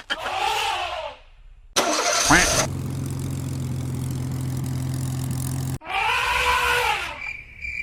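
Cartoon sound effects: a sudden start, then a steady, engine-like low hum for about three seconds, framed by short rising-and-falling tones.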